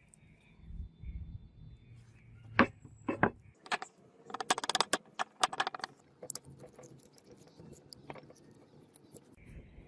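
Light metallic clinks and rattles: a few separate clicks, then a quick flurry of small metal-on-metal knocks for about two seconds, tapering to occasional ticks.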